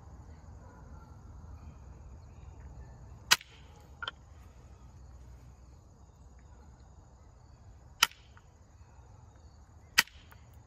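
An antler billet strikes a flint point in percussion knapping. It makes three sharp clicks a few seconds apart, with a lighter tap about a second after the first. The flint is fracturing unpredictably under the blows.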